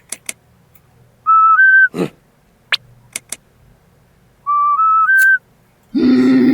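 Two short whistle-like tunes of three clean notes stepping up in pitch, with sharp clicks scattered between them and a brief buzzy burst near the end.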